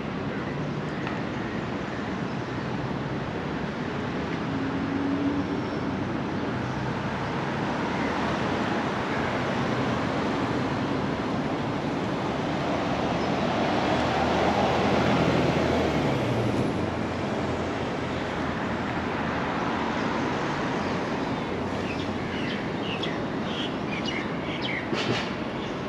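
Steady city traffic noise. About fifteen seconds in, a passing vehicle swells in level and its engine note drops in pitch as it goes by. A few sharp clicks come near the end.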